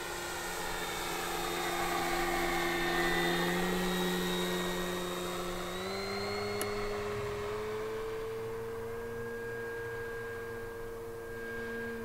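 Electric motor and propeller of an E-flite Carbon-Z Cessna 150 Aerobat RC plane in flight, a steady droning whine that steps up in pitch about halfway through, then falls away at the end.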